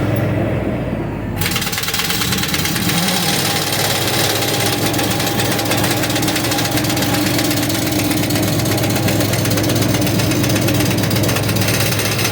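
Air impact wrench hammering continuously, starting about a second in, over a truck engine running steadily.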